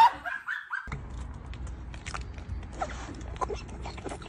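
After a brief high-pitched cry in the first second, a calf sucks on a bottle's rubber nipple: small scattered sucking clicks over a steady low rumble on the microphone.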